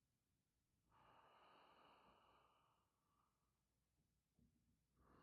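Very faint, slow breathing: one long breath about a second in that lasts about two seconds, and another starting near the end.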